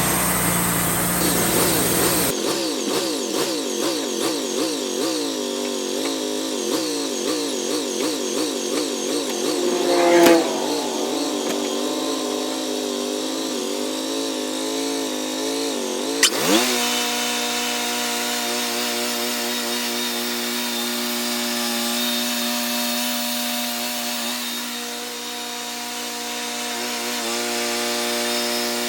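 Wood-Mizer LT40 portable sawmill running, its band blade sawing through an oak log. The machine's pitch wavers up and down through the first half, with a short sharp sound about ten seconds in and a quick pitch swoop around sixteen seconds, after which it runs at a steady pitch.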